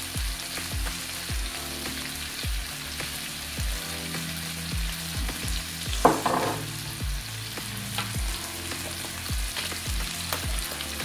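Chicken pieces sizzling as they fry in a pan with a spiced peri-peri coating, a steady hiss, under quiet background music with a low beat. A brief louder noise comes about six seconds in.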